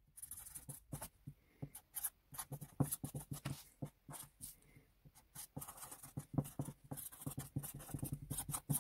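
Permanent marker scratching and squeaking across a sheet of paper in many short, irregular strokes as words are handwritten.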